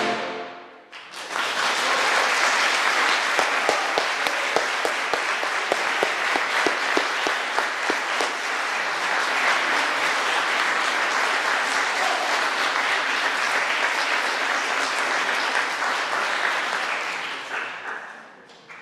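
The last chord of the choir and piano dies away about a second in, then a concert audience claps steadily for about sixteen seconds, the applause tapering off near the end.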